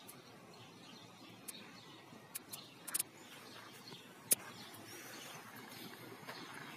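Faint outdoor background noise, broken by a few short, sharp clicks, the loudest about four seconds in.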